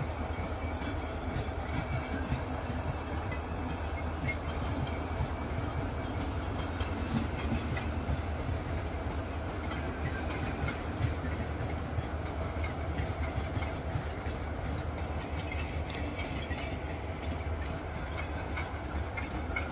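Train rolling along the rails: a steady rumble of wheels on track with a few faint scattered clicks.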